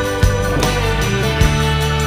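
Background music with guitar, steady notes and a regular beat.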